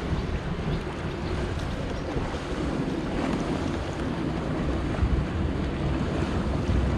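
Wind buffeting the microphone over the steady wash of water.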